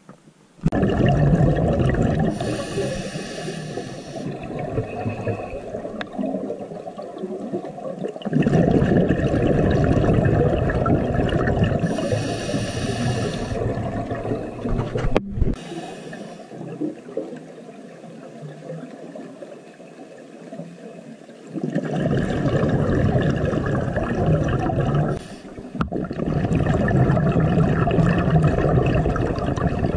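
Scuba breathing heard underwater: a regulator's hiss and rushing, gurgling exhaled bubbles that swell and fade every few seconds.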